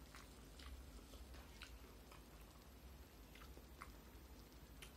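Faint eating sounds: a handful of soft, short clicks and smacks from chewing and from fingers gathering rice on a plastic plate, over a low steady hum.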